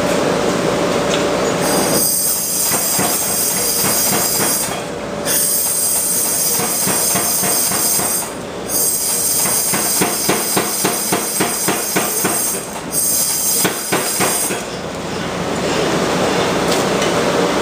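Air power hammer pounding hot steel in runs of rapid, evenly spaced blows. It starts about two seconds in, pauses briefly a few times, and stops a few seconds before the end.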